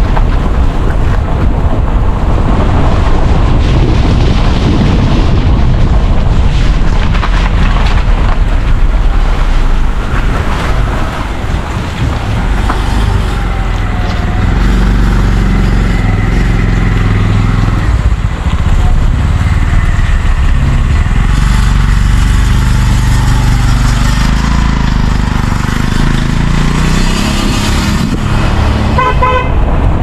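A moving car's road noise, with wind buffeting a microphone held out of the window. Near the end a vehicle horn gives a quick run of short beeps.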